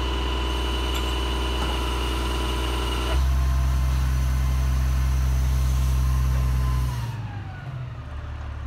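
Diesel engine of a utility boom truck running while its crane lowers a pad-mounted transformer. The engine speeds up and gets louder about three seconds in, then drops back down near the end with a falling whine.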